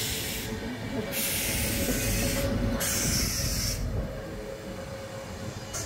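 Passenger train running, heard from on board: a steady low rumble with bursts of rushing hiss in the first four seconds.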